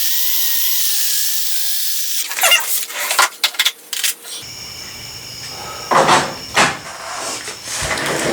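Battery drill spinning a foam polishing ball against a plastic headlight lens, its motor whine wavering in pitch; the user thinks the drill battery is about to run down. The drill stops about two seconds in, followed by a run of clicks and knocks from handling.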